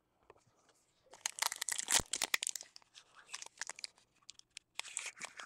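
A foil trading-card pack being torn open and its wrapper crinkling, in crackling spurts that start about a second in and come again near the end.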